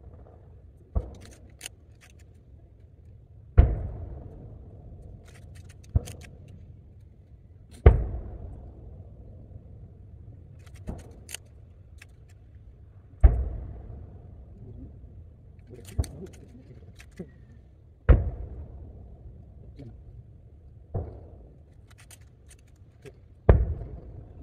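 Booms of large 12-inch (shakudama) firework shells heard from several kilometres away. About eleven sharp reports come every two to five seconds, each followed by a long rolling echo, with the biggest about 3.5, 8 and 13 seconds in.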